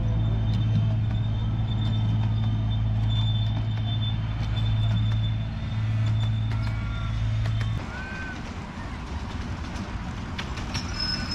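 Miniature railway train passing: a steady low hum with rumbling wheel noise, which cuts off abruptly about three-quarters of the way through. Uneven rattling and light clicks of wheels on the track follow.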